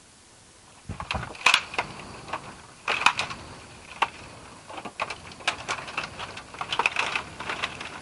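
Dry branches and twigs cracking and snapping in a rapid, irregular run of sharp clicks as someone clambers over a pile of cut branches. It starts about a second in.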